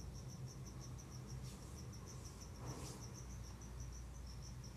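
Faint cricket chirping: a high, even pulse repeating about five or six times a second, over a low hum.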